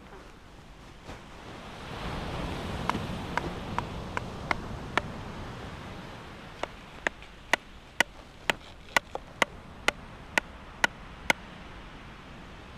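Sharp knocks about two a second, in two runs: a short, softer run of about six a few seconds in, then a longer, louder run of about a dozen. Underneath is steady surf and wind noise that swells in the first half.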